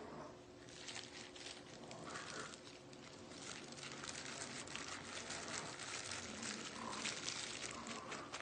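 Thin plastic food-prep gloves crinkling and rustling as hands press and toss chicken pieces in a bowl of arrowroot starch. It is a run of soft, irregular crackles.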